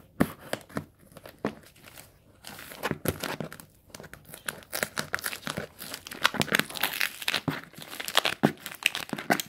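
Scissors cutting open packaging, with tape and plastic crinkling and tearing: sharp snips and crackles, sparse at first and much busier from a little over two seconds in.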